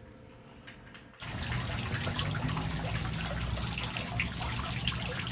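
Faint room tone, then about a second in, running, trickling water starts abruptly and goes on steadily, with a low hum beneath it.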